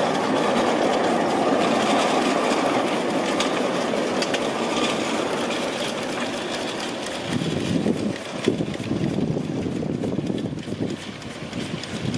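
Live-steam miniature ride-on train running along the track, a steady noisy sound that fades as it draws away. From about seven seconds in, wind buffets the microphone.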